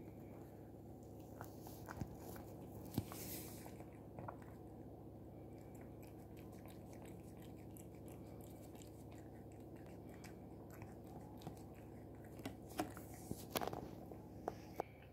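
A cat licking and chewing the last scraps of food from a clear plastic tray: soft wet mouth sounds with scattered small clicks of tongue and teeth on the plastic. The clicks come thicker and sharper near the end.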